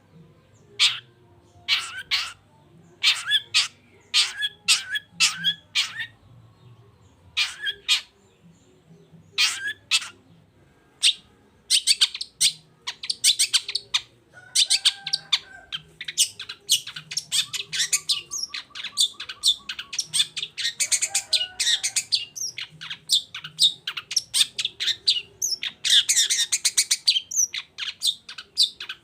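Long-tailed shrike (cendet) singing: spaced, sharp harsh notes at first, then from about twelve seconds in a fast, continuous chattering run.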